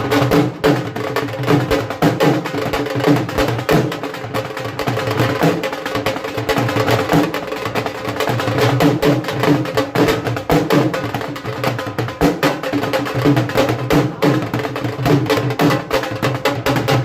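Dhol drum played in a fast, steady rhythm of dense strokes, with steady pitched tones held underneath.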